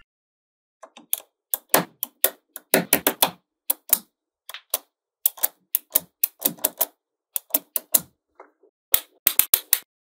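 Small magnetic balls clicking and snapping together as strips of them are pressed onto a wall built from the same balls: many sharp, irregular clicks, sometimes two or three in quick succession.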